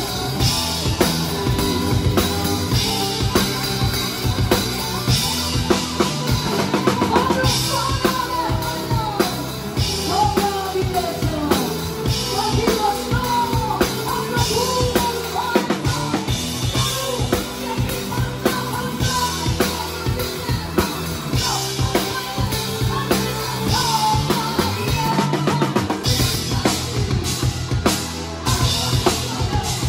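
Live rock band playing, heard close to the drum kit: kick drum, snare and cymbals hit hard and steadily over a bass line, with a bending melody line above.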